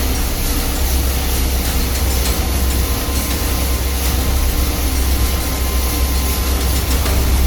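Copper nugget plant machinery running: a steady, loud industrial drone with a deep hum and a faint steady whine.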